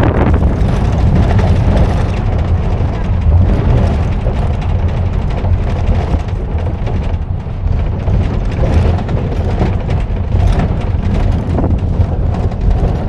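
Wind buffeting the microphone and the steady low rumble of a vehicle driving along at speed, recorded from an open window.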